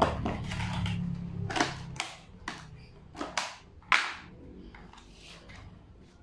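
Clear plastic bin lid cracking and snapping in a series of sharp clicks as a panel scored with a cutter is bent and pulled free, the loudest cracks at the start and about four seconds in. A low hum fades out about two seconds in.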